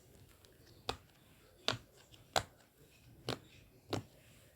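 A fidget toy being worked by hand, giving five sharp clicks spaced a little under a second apart.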